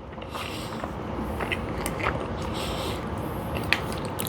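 A person chewing a bite of a Snickers-style candy bar, a steady wet chewing with small clicks scattered through it.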